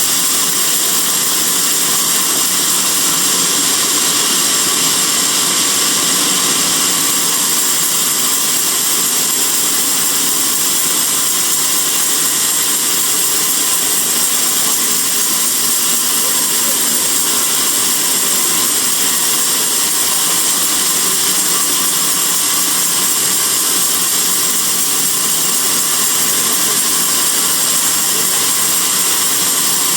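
Band sawmill running steadily: a loud, continuous mechanical noise with a strong high hiss and no pauses.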